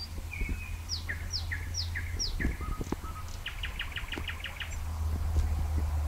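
Nightingale singing: a phrase of four repeated down-slurred whistled notes, then a fast run of about eight short clipped notes in about a second, over a steady low rumble.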